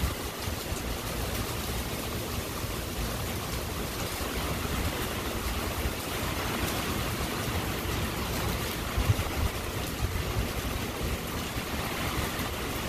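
Heavy rain falling steadily, an even hiss with a low rumble underneath and a brief thump about nine seconds in.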